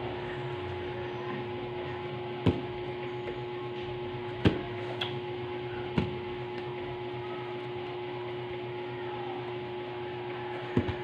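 A steady machine hum with a held tone, broken by four sharp clicks or knocks spaced irregularly through it.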